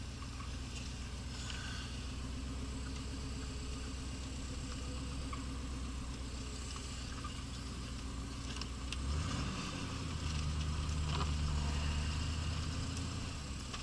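V8 engine of a 1983 Pontiac Trans Am heard from inside the car, running low and steady, then revving up about nine seconds in and held for a few seconds before easing off near the end. The rear wheels are being spun on snow to swing the car round in a 180-degree turn.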